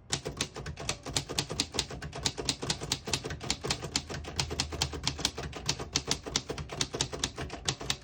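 1947 Royal Model U portable typewriter typing at a steady pace: an even run of type-bar strikes, about five to six a second, the keys striking cleanly without skipping or sticking.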